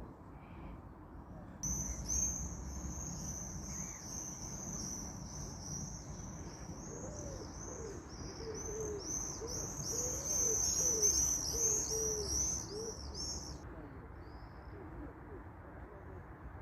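Wild animal calls. A high, fast chirping song starts about two seconds in and stops abruptly a few seconds before the end, over a steady low background hiss. Lower, short rising-and-falling notes sound alongside it in the middle.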